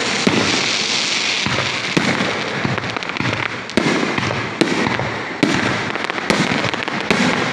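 Aerial fireworks shells bursting overhead: a sharp bang about every half second to second over a continuous wash of noise from the display.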